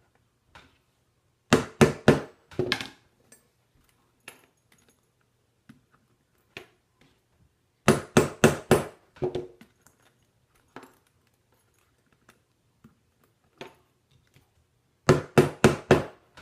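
Hammer blows on a metal rivet setter, setting rivets through leather on a steel anvil. Three quick bursts of about five or six strikes each, a few seconds apart.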